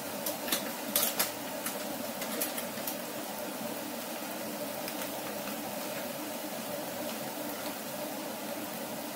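Tomato wedges cooking in a saucepan on a gas hob: a steady hiss, with a few sharp pops and crackles in the first three seconds.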